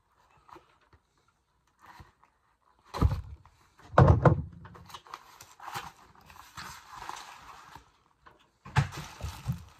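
Cardboard box being handled and opened: two heavy thumps about three and four seconds in, then rustling and crinkling of packing paper being pulled out, with a few more knocks near the end.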